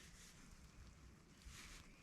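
Near silence: faint outdoor background, with a soft brief hiss of noise about one and a half seconds in.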